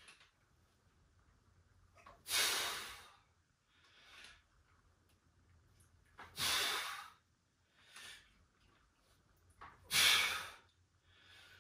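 A man breathing hard through a set of dumbbell reps: three forceful exhales about four seconds apart, each lasting about a second, with quieter inhales between them.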